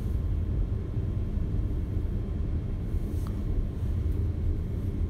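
Steady low background rumble, with a faint short click about three seconds in.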